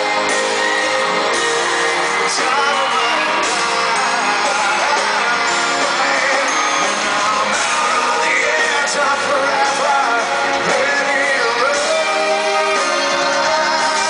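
Live band playing a pop-rock ballad with guitar and drums while a male lead singer sings, heard from the crowd in a large arena.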